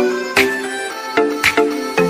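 Background music with a steady beat and plucked-sounding melodic notes.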